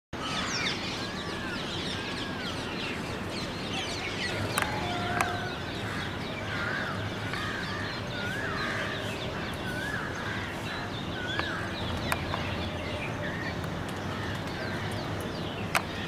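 Several birds calling together in trees: many quick high chirps, with one bird repeating a short warbled call about once a second through the middle. A few sharp clicks stand out above them.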